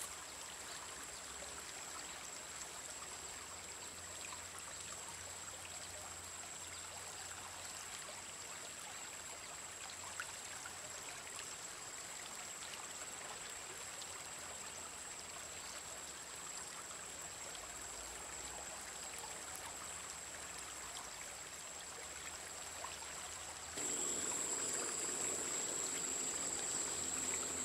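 River water flowing and trickling steadily, with a thin, constant high-pitched tone over it; both get louder for the last few seconds.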